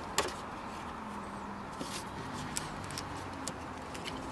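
Light plastic clicks and taps as a door trim bezel is worked loose by hand, the sharpest about a quarter second in, then a few fainter ones, over steady background noise.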